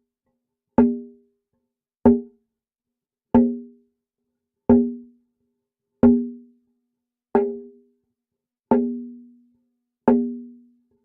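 A finger tapping a metal bullet catcher, eight taps evenly spaced about 1.3 seconds apart. Each tap rings with a low, hollow resonant tone that fades within about a second.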